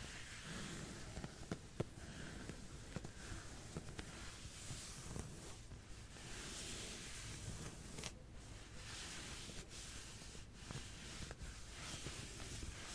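Fingernails scratching a surface for an ASMR back scratch, in repeated scratchy strokes that swell and fade, with a few small clicks.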